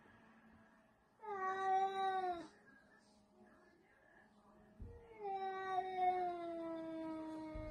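Domestic cat yowling twice at another cat during a face-off: a short call whose pitch falls at the end, then about two and a half seconds later a long, drawn-out call that slowly sinks in pitch, sounding like a drawn-out "fuck you".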